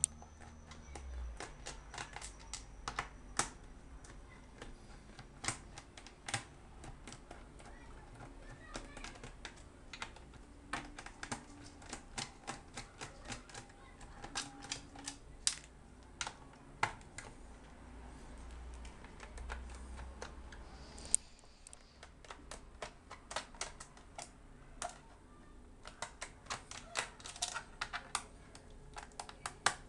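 A screwdriver backing out the small screws of a laptop's plastic bottom case, giving irregular sharp clicks and ticks of the tool against the screw heads and case.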